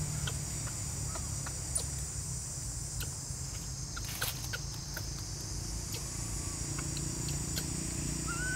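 Forest background: a steady high-pitched insect drone over a low rumble, with scattered faint clicks. A short rising call starts near the end.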